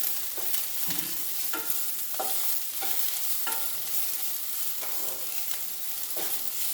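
Sliced okra and onion sizzling in hot oil in a pan, stirred with a steady hiss and a utensil scraping across the pan about every two-thirds of a second.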